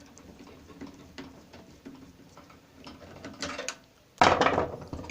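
Screwdriver backing a small screw out of a microwave's circuit board: faint ticks and scrapes, with a short loud rattle about four seconds in.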